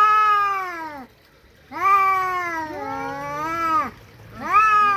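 Two ginger tabby cats caterwauling at each other in a face-off before a fight. There are three long, drawn-out yowls that rise and then fall in pitch, and a second cat's voice overlaps the middle one.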